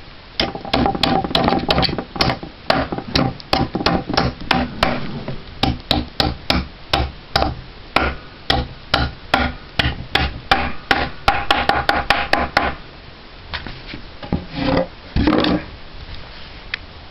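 Hammer blows on wooden beehive parts being assembled, struck quickly and steadily at about three a second, each with a slight ring. The hammering stops about thirteen seconds in, followed by a couple of duller knocks.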